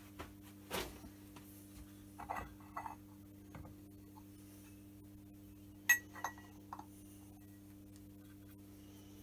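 Steel parts of a Myford Super 7 lathe countershaft and clutch clinking and knocking as they are handled and set down on a vise, in a few scattered strikes, the sharpest ringing clink about six seconds in. A steady low hum runs underneath.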